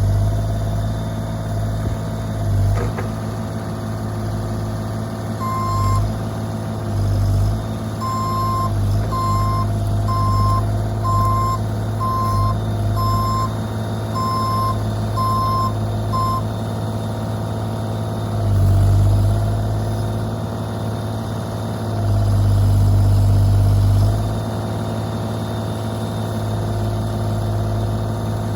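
Bobcat E35 mini excavator's diesel engine running, swelling several times as the hydraulics take load. A travel alarm beeps evenly, about once a second, from about five seconds in until about sixteen seconds in.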